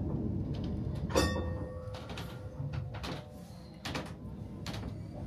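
A sharp metallic clang about a second in that rings on like a bell and fades over about three seconds, followed by a few softer knocks, over a low background rumble.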